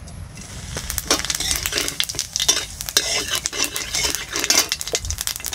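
Cumin seeds sizzling and crackling in hot oil in a metal wok, the hiss starting about half a second in as they hit the oil, with a metal spatula scraping and clinking against the pan as they are stirred.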